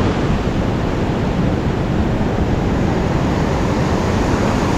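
Ocean surf breaking offshore and washing up the sand of the beach: a steady rush of water.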